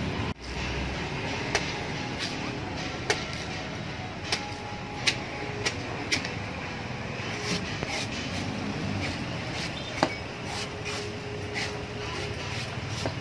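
A heavy cleaver chopping the husk off a young green coconut on a wooden block: irregular sharp chops, about a dozen, the loudest about ten seconds in, over a steady hum of street noise.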